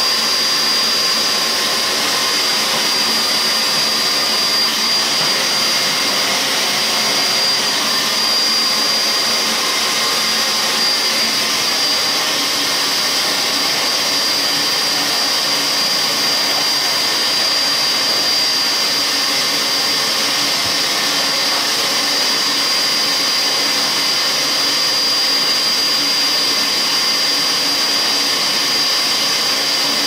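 Vacuum cleaner running steadily: an even rush of air with a thin, high whine held on one pitch.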